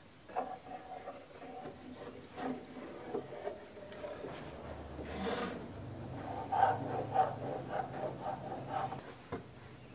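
Hand caulking gun squeezed to lay beads of construction adhesive on wood: irregular clicks of the trigger and plunger with scraping and rubbing, busier and louder in the second half.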